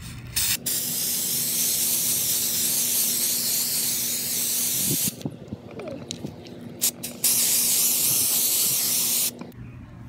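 Rust-Oleum aerosol spray paint can hissing as it sprays sparkly silver paint onto wooden clothespins. There is a brief puff, a long spray of about four and a half seconds, a few short spurts, then another spray of about two seconds that cuts off near the end.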